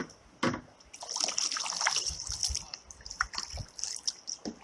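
Water sloshing and trickling close by, with a few short knocks.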